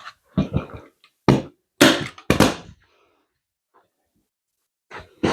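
Hand-squeezed staple gun firing staples through vinyl upholstery into a cushion base: a quick series of sharp snaps, three loud ones close together between about one and two and a half seconds in, with softer knocks and handling around them.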